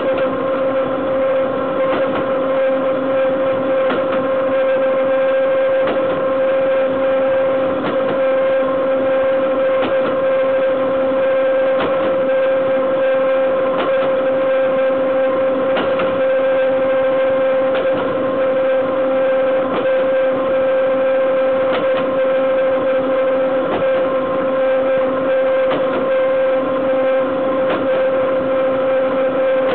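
Freight train's steel wheels rolling on the rails at speed, heard right at the bogie: a loud steady running noise with a high, unchanging hum through it and a faint click about every two seconds as the wheels pass over rail joints.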